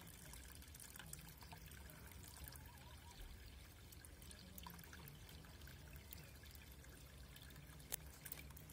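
Faint trickling water in a garden fish pond, over a low steady hum. A single sharp click near the end.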